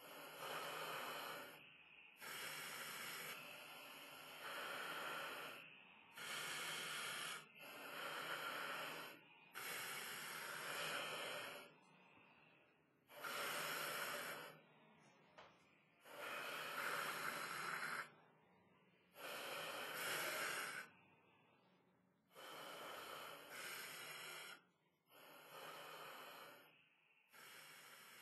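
Sleeping puppy breathing noisily, a faint rough breath every one to three seconds.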